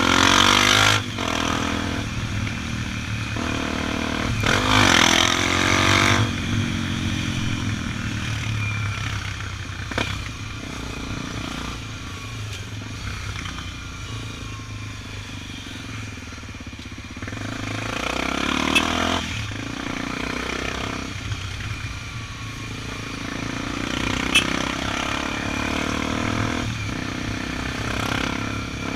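Honda XR 250 Tornado's single-cylinder four-stroke engine running steadily under way in traffic, with wind rush on the microphone. Louder rushes of noise swell and fade near the start, about five seconds in, around eighteen seconds in and again at the end, with a few sharp clicks between.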